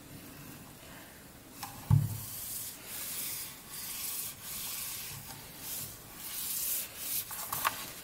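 Cotton-gloved hand rubbing back and forth across the seamless membrane surface of an MKC-69P-V1 rugged keyboard in several hissing strokes. A low thump about two seconds in, and a few light clicks near the end.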